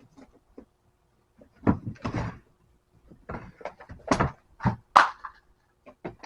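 A run of irregular knocks and clatters, about half a dozen over a few seconds, the loudest about five seconds in, with a short scraping rattle about two seconds in: hard objects being handled and set down.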